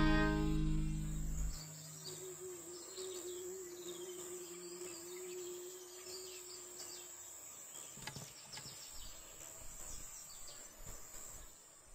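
Music fades out in the first second and a half, leaving faint outdoor ambience. A steady high insect drone and scattered bird chirps continue, with a low steady hum for a few seconds and a few soft thumps in the last few seconds.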